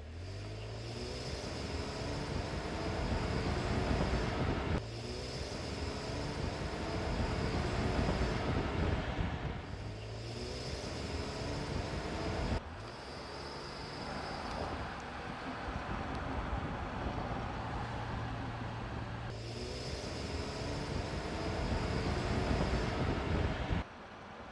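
Volkswagen Touareg Hybrid SUV driving at speed on an open road: tyre and road noise with an engine note that rises in pitch several times as it accelerates. The sound changes abruptly a few times where the shots are cut together.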